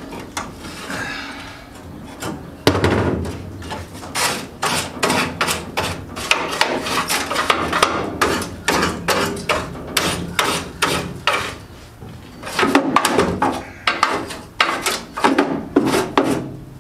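Rusted sheet-metal floor of a 1975 Daihatsu F10 being knocked and scraped out by hand: a dense run of sharp metallic knocks, about two to three a second, with rough scraping between them, starting about two and a half seconds in and easing briefly about twelve seconds in.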